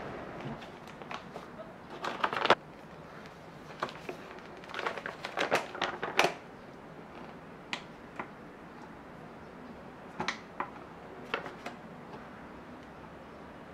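Small handling noises from kitchen things on a cloth-covered table: scattered light clicks, taps and rustles, bunched in two flurries in the first half, then a few single taps.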